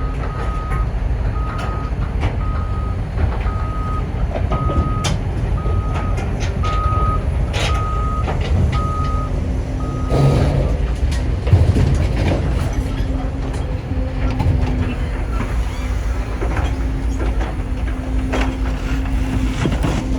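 Backup alarm on heavy railroad work equipment beeping about once a second over running diesel machinery, stopping about halfway through. Sharp clanks and knocks of machinery at work are scattered throughout, and a lower, broken tone sounds in the second half.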